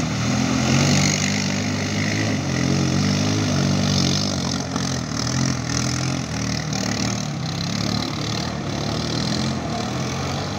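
Off-road vehicle engine running steadily at low revs, its note wavering slightly.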